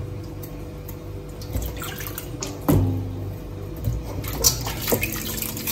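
Green bananas being peeled by hand in a steel bowl of water: water sloshing and dripping, with a few sharp clicks, the loudest near the middle.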